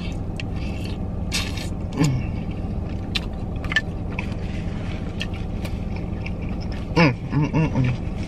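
Close-up eating sounds of a seafood boil: chewing with wet mouth clicks and smacks, and the plastic boil bag crinkling, over a steady low hum inside the car. There is a short "mm" about two seconds in, and several quick hummed "mm" sounds near the end.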